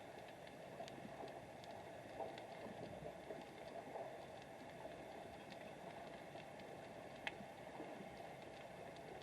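Underwater ambience picked up by a submerged camera: a faint steady wash of water noise with many scattered small clicks and crackles, one sharper click about seven seconds in.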